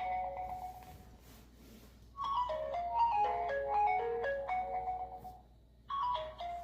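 Mobile phone ringtone melody of quick stepped notes, played in short phrases with brief pauses between them.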